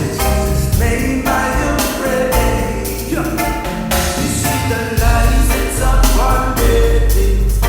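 A song playing: a heavy bass line and a steady drum beat under melodic parts, with singing in places.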